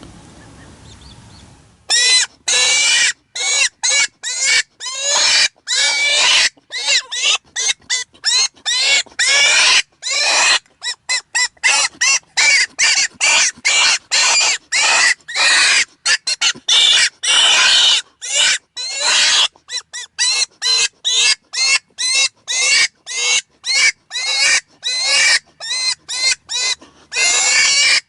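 Primos Double Cottontail mouth-blown predator call, blown as a string of loud, wavering rabbit-distress squeals with short breaths between them, starting about two seconds in. It imitates a cottontail rabbit in distress to draw coyotes in.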